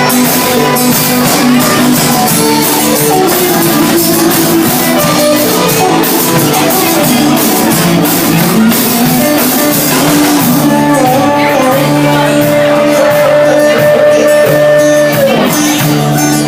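Live rock band playing loudly: electric guitar over drums and cymbals, with one long held note in the last few seconds.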